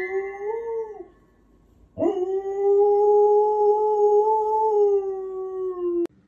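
A dog howling: one held howl that fades out about a second in, then a longer one starting about two seconds in, steady in pitch with a slight rise and fall, cut off suddenly near the end.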